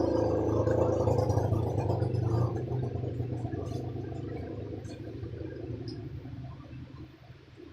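Table fan motor coil humming under mains power during a test of the repaired winding: a low, steady electrical hum that gradually fades over the second half.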